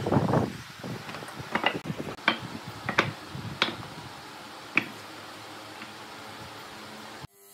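A brief wooden scrape, then a series of sharp wooden knocks as pine boards are set down and stacked on a wooden workbench, about six knocks spread over a few seconds.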